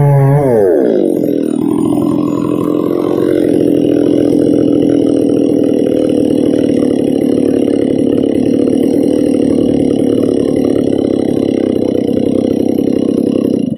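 Stihl MS660 two-stroke chainsaw coming off full throttle at the end of a cut, its revs falling quickly within the first second or so. It then idles steadily.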